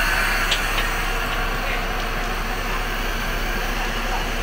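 Steady mechanical running noise with a constant low hum, and a couple of faint clicks about half a second in.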